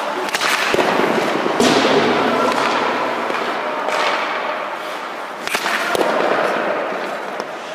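Ice hockey goalie skates and leg pads scraping across the ice as the goalie slides and drops into a butterfly. Sharp cracks of pucks being shot and striking the pads come several times.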